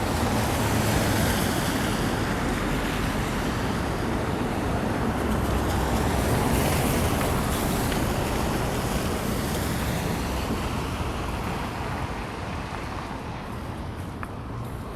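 Steady street traffic noise: passing vehicles with a wash of tyres on the snowy road, easing off a little near the end.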